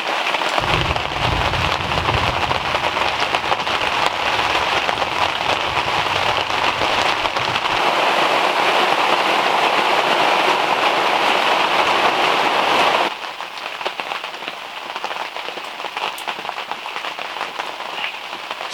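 Heavy rain pouring down as a loud, steady hiss, with a low rumble underneath for the first eight seconds or so. About thirteen seconds in the rain suddenly becomes quieter.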